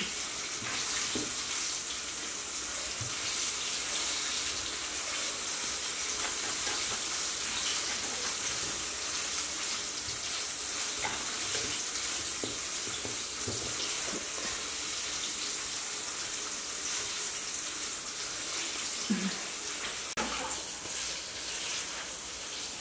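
Steady sizzling hiss of chicken frying in hot oil, with a few faint soft ticks from hands pressing crumb coating onto the meat.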